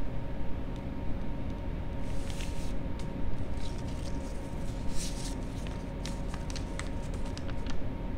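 A paper envelope being torn open and the letter pulled out and unfolded: a run of short, crisp paper rustles and crinkles, busiest in the second half, over a steady background hiss and hum.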